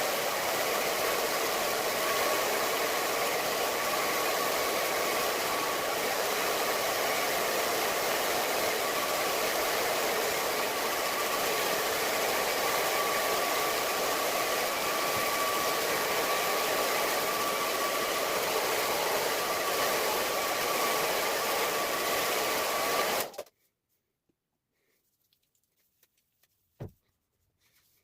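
A household appliance's electric fan motor running steadily, a rushing noise with a constant whine, then switched off suddenly about 23 seconds in, leaving near silence with a faint click near the end.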